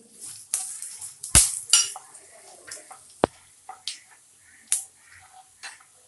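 A spoon stirring and scraping in a frying pan while coriander seeds roast with dried red chillies in oil. It comes as scattered scrapes and clicks, with two sharp knocks on the pan, the loudest about a second and a half in.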